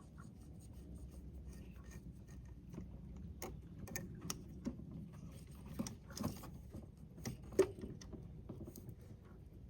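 Hands working on an ATV's parts with tools: scattered light clicks, taps and scrapes, with one sharper click past the middle.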